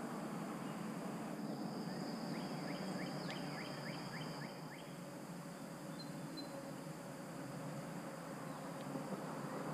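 Calm outdoor river ambience: a steady soft hiss, with a bird repeating a quick series of about eight short notes a couple of seconds in, over a high steady buzz.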